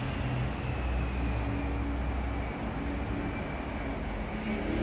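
Seoul Line 3 GEC chopper electric train running past the platform: a steady rumble with a faint high whine that slowly falls in pitch.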